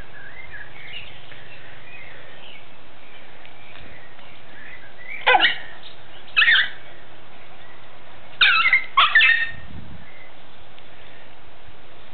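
Small dog barking four times: two single barks about a second apart, then two more close together.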